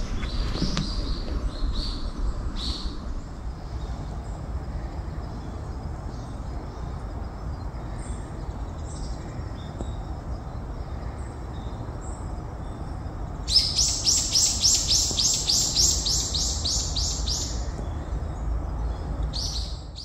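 Birds chirping, with one bird giving a loud, fast run of repeated high notes, about four a second, for some four seconds past the middle, over a steady low rumble.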